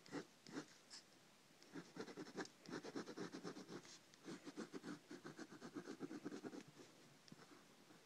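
Faint scratching of a drawing tool on paper: quick back-and-forth sketching strokes in two runs of about two seconds each, with a short pause between.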